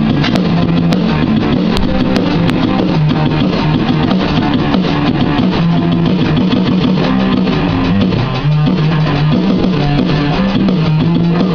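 Rock music playing continuously, with guitar, bass and drums.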